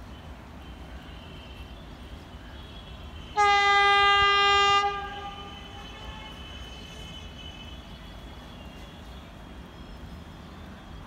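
Vande Bharat Express train horn: one long, steady blast of about a second and a half, starting about three seconds in and fading away after it stops.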